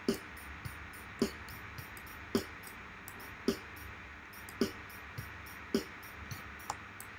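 Electronic drum pattern from Bespoke Synth's drum player: a low drum hit with a falling pitch about once a second, with quicker high ticks between the hits. The low hits stop about six seconds in.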